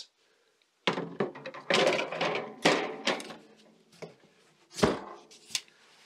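Wire storage baskets clattering as they are set back into a SetPower RV45S portable compressor fridge, then the fridge's lid thunking shut about five seconds in.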